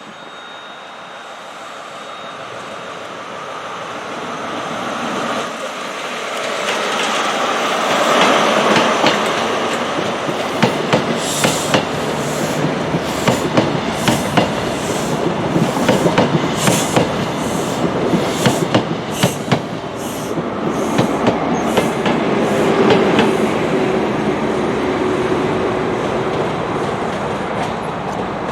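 A train running in past the microphone, growing louder over the first several seconds. Its wheels then clatter over rail joints and points in a regular clickety-clack for about ten seconds before the sound eases a little.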